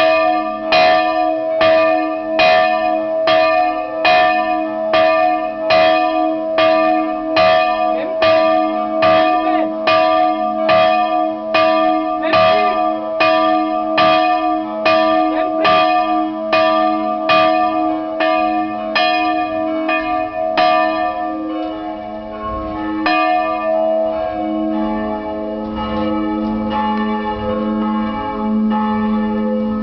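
A single e'' church bell of Briloner special bronze, cast in 1951, swinging and struck by its clapper in a steady, regular rhythm. Its tones hang on between strokes. About three quarters of the way through, the strokes falter and stop, and the bell's tone keeps ringing on as it comes to rest.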